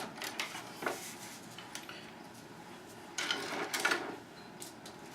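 Light clicks and rustling from handling the soldering iron, solder and board on a workbench, with a brief cluster of small clatter about three seconds in.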